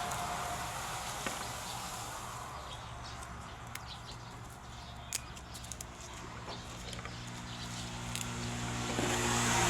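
Motor vehicle traffic: one vehicle's engine fades away and another grows louder near the end, with a few short ticks in the quieter middle.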